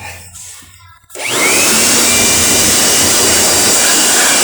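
Handheld electric blower switched on about a second in, its motor whining up to speed and then running steadily with a loud rush of air, blowing dust off a refrigerator's parts during cleaning.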